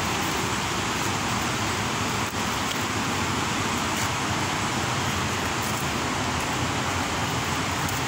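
Steady rushing roar of the Kpatawee waterfall, an even wash of falling water that holds at one level throughout.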